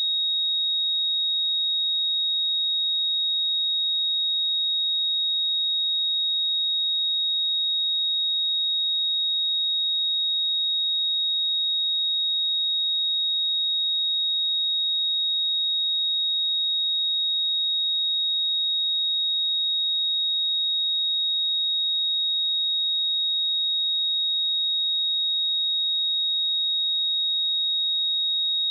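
A pure 3766 Hz sine-wave test tone, one high steady pitch held without change.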